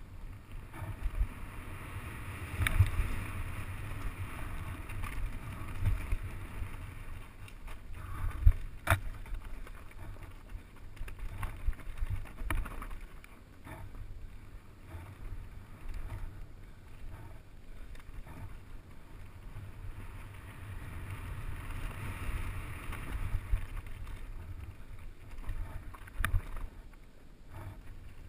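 Mountain bike descending a rough dirt forest trail: a steady rumble of tyres on the ground and wind on the camera microphone, with sharp clacks from the bike over bumps, the loudest about nine seconds in.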